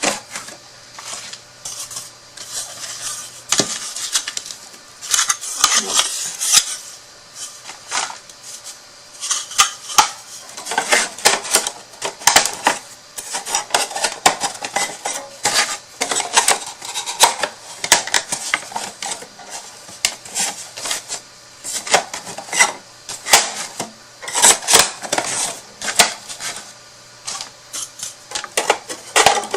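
Thin wooden panels of a slot-together storage box knocking, clicking and rattling against each other as they are handled and pushed into their slots, in quick irregular taps.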